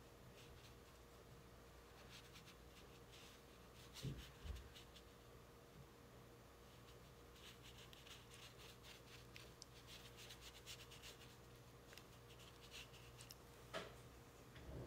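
Faint scratching and brushing of a paintbrush stroking over watercolour paper, in short strokes, with two soft thumps about four seconds in and a low steady hum beneath.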